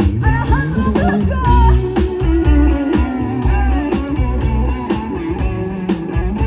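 Live band playing an instrumental passage: a lead guitar line sliding and bending over a heavy bass and drum kit.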